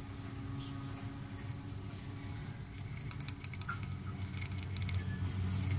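A toothbrush scrubbing a wet, grimy glass kerosene-lamp part: irregular scratchy rubbing and small clicks of bristles and plastic on glass, over a steady low hum.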